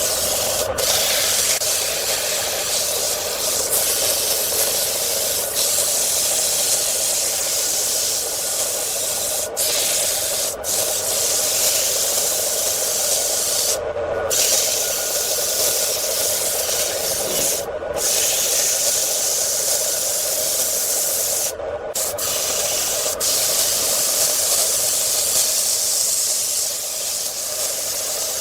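Wood lathe running steadily while something rubs against the spinning wood, most like sanding: a steady hiss over a constant hum. The sound breaks off briefly several times.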